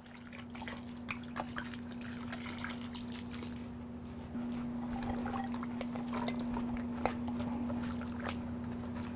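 Liquid pouring and trickling into a water-filled cast-iron cauldron, with scattered small clicks and knocks over a steady low hum.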